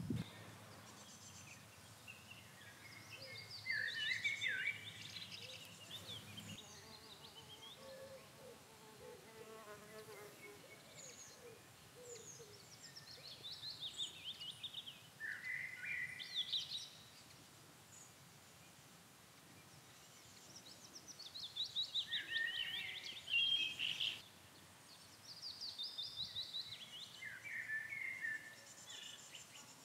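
Songbirds singing outdoors in short, high, trilled phrases that come every few seconds. An insect buzzes faintly past about a third of the way through.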